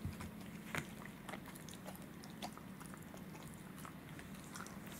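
Welsh corgi gnawing on a rawhide chew: irregular crunching and cracking as its teeth work the hide, the sharpest crack about a second in.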